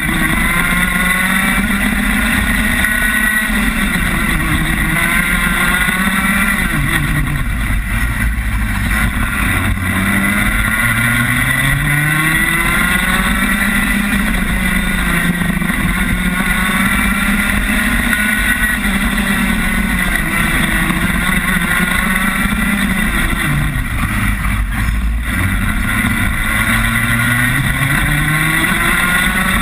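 Rotax Max 125cc two-stroke single-cylinder kart engine heard onboard, revving up in long rising sweeps along the straights and dropping back off for the corners, several times over.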